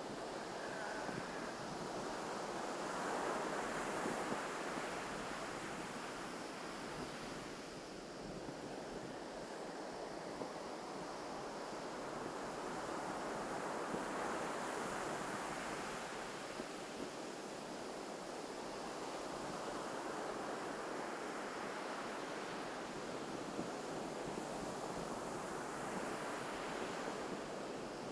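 Ocean surf breaking on a beach, a steady wash of waves that swells and eases, with a bigger wave building about every eleven or twelve seconds.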